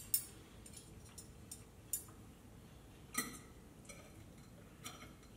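Sparse light clicks and clinks of a metal fork against baked oyster shells and a ceramic plate, about seven small taps at uneven intervals. The loudest, a little after three seconds in, rings briefly.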